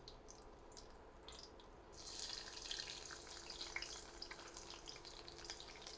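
Dried red chilies frying faintly in hot oil with a few scattered pops. About two seconds in, chopped garlic goes into the pan and the sizzle turns to a louder, steady crackling hiss.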